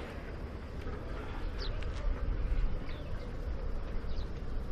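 Outdoor ambience: a low, uneven rumble with a few faint, short, high bird chirps that fall in pitch, about three in all.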